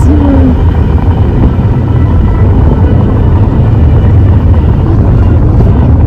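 Loud, steady wind rumble buffeting the microphone.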